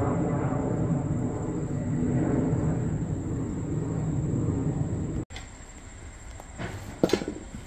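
Steady low rumble of a large engine running, which cuts off suddenly about five seconds in. After that it is much quieter, with a few light knocks near the end.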